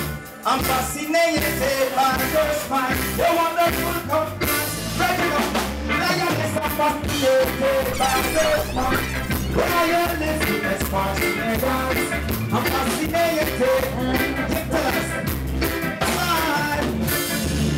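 Live reggae band playing with a steady beat, drums and keyboards, and a male singer's voice over it through the PA.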